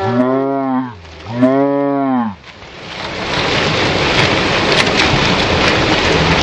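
Slowed-down audio of a slow-motion replay: two deep, drawn-out tones, each rising then falling in pitch, then from about two and a half seconds a steady rushing noise.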